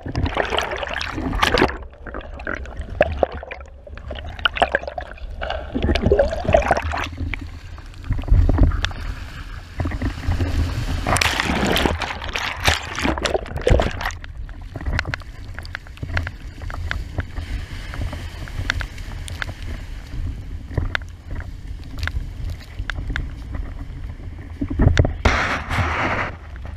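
Water splashing and rushing against a windsurf board under sail, in irregular bursts, over a steady low rumble of wind on the board-mounted microphone.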